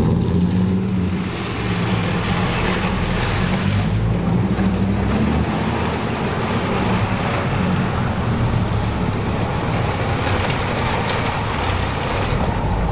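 A car driving at a steady pace: a constant engine hum under road and wind noise.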